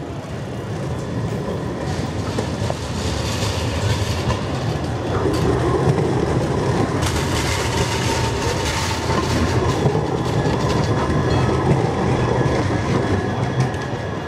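HTM Siemens Avenio low-floor tram passing close by, getting louder over the first several seconds as it approaches. Its wheels rumble on the rails with scattered clicks from the track.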